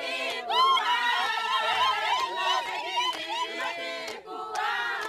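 A crowd of women's voices, many at once, calling out and singing excitedly over one another.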